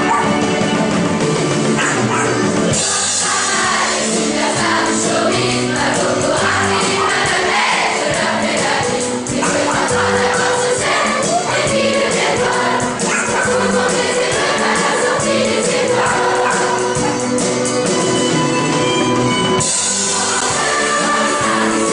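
Large school choir singing with a student band of drum kit, saxophones, flutes and violins, playing a lively song with a steady beat.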